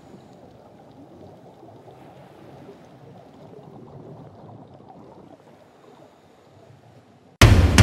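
Faint, low, muffled underwater water sound. About seven seconds in, loud music with heavy drum hits cuts in suddenly.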